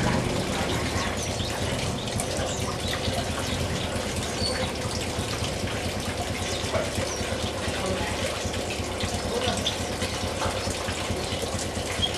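Steady running water in an aviary pool, with small finches splashing as they bathe and scattered short, high chirps.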